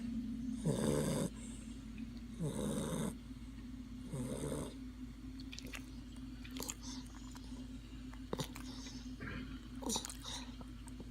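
A dog snoring in its sleep: three snores about a second and a half apart, then the snoring stops and only a few short clicks are heard, over a steady low hum.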